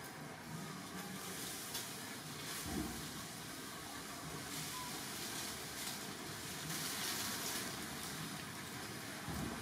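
Steady outdoor background hiss, with two brief low thuds, about three seconds in and near the end.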